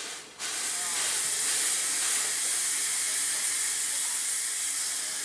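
Steam hissing steadily from a 1922 Hitachi-built light passenger steam locomotive, vented low beside its driving wheels. The hiss starts suddenly about half a second in and slowly fades near the end.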